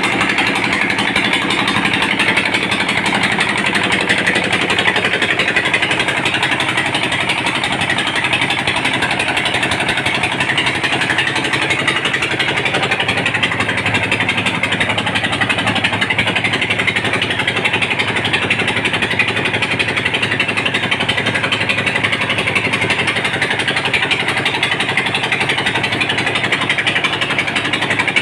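Rice milling machine running steadily, a loud, unbroken machine noise with a steady hum beneath it as grain passes through and husk and dust spray from its outlet.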